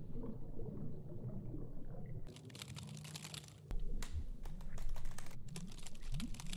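Rapid, dense typing-like clicking that starts about two seconds in and grows louder a second later, over a low background rumble.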